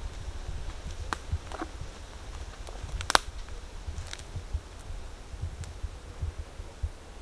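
A few sharp cracks and rustles of dry twigs and leaf litter on a forest floor, the loudest about three seconds in, over a steady low rumble.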